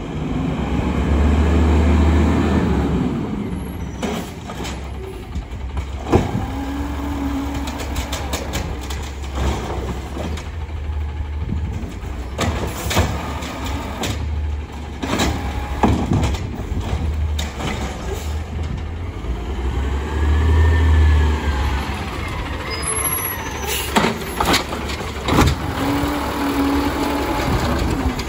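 Natural-gas automated side-loader garbage truck running, its engine rumble swelling up twice in surges. Sharp air-brake hisses and knocks come and go as it stops and starts along the curb.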